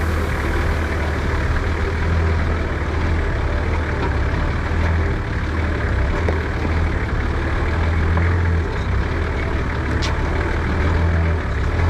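Four-wheel-drive ute's engine running steadily at low revs as it crawls over a rocky track, a constant low rumble. There is a single sharp click about ten seconds in.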